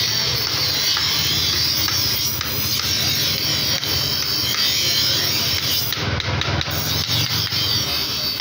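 Electric bench grinder running with a steel knife blade held against its wheel, a steady high grinding hiss over the motor's hum, as the blade is sharpened. A few light metallic taps sound now and then.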